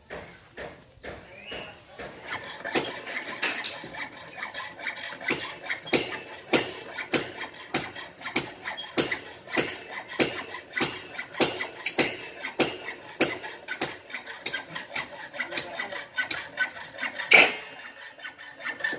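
Steel being worked by hand: a string of sharp metallic strokes, about two a second, each with a short ringing note, and one louder hit near the end.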